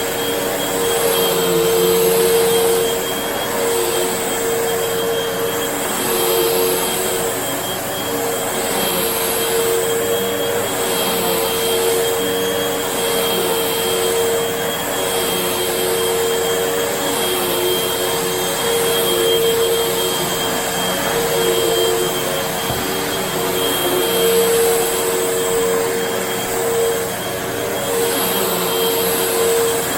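Vacuum cleaner running steadily: a rushing airflow with a motor whine that holds one pitch throughout, swelling a little in loudness now and then.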